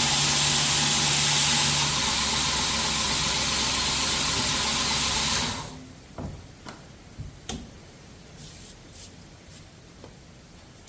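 A machine running with a steady hum and a strong hiss, cut off about six seconds in. A few light clicks and knocks follow.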